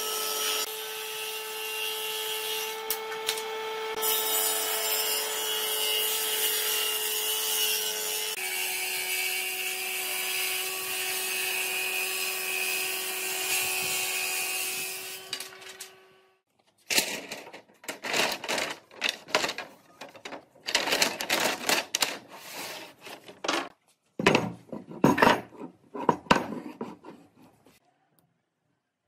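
An electric power tool running steadily with a motor whine, its pitch dipping slightly about halfway through its run, then switching off about sixteen seconds in. A series of short, irregular bursts of noise follows.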